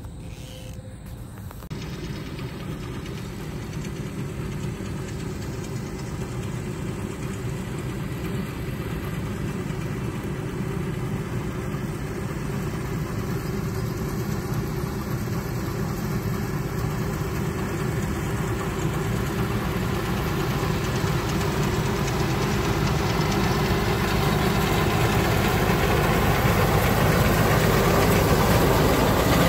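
An engine running steadily, starting in about two seconds in and growing gradually louder.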